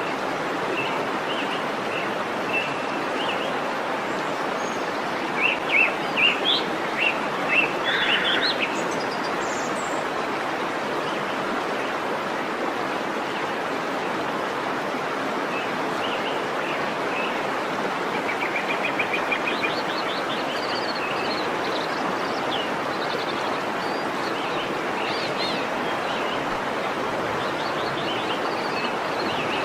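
Steady rush of a waterfall, with birds chirping over it: a burst of short chirps several seconds in, a quick trill about a third of the way through, and scattered calls later.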